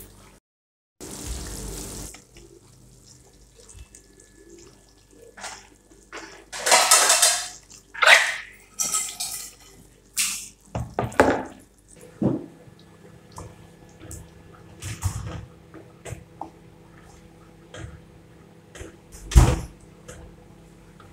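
Cooking sounds at a frying pan of curry sauce: cream pouring and splashing into the thick gravy, then a wooden spoon stirring and scraping in the pan, with a sharp knock against it near the end.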